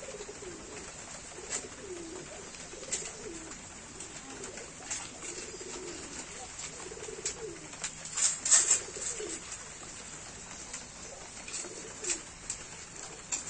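Puppies eating from a steel bowl: sharp wet chewing and lapping clicks with small clinks, loudest in a cluster about eight seconds in. Under them runs a series of soft, low cooing calls.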